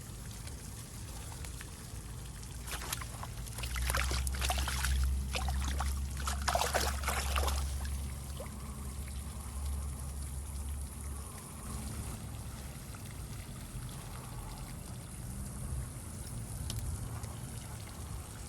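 Water splashing and trickling as a largemouth bass is let back into the pond, busiest a few seconds in, with a low rumble underneath, then a quieter steady trickle.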